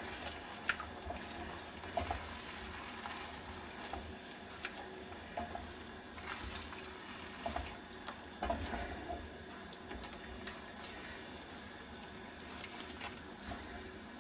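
Wooden spatula stirring eggs through a thick, simmering tomato sauce in a metal frying pan: scattered soft scrapes and taps against the pan over a faint bubbling sizzle.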